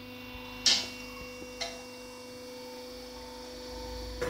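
Steady electrical hum from the self-piercing riveting setup, with a sharp metal clack about a second in and a lighter knock about a second later as the metal bracket is handled in the riveter's jaws.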